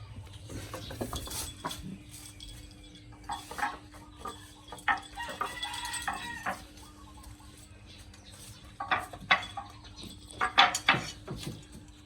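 Irregular clatter and knocks of hard objects, like dishes being bumped, with a short squawk or cluck from a chicken near the middle. The loudest knocks come in a cluster about nine to eleven seconds in.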